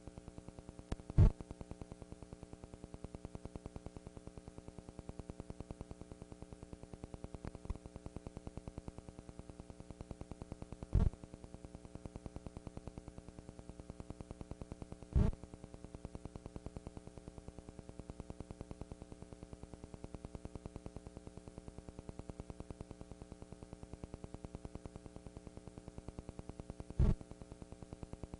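Steady electrical hum and buzz on the recording, with a fast, even flutter, broken by a few short pops, about a second in, around 11 and 15 seconds, and near the end.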